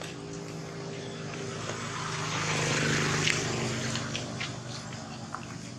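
A motor vehicle's engine passing by: a steady hum that grows louder to a peak about halfway through, drops slightly in pitch, then fades away.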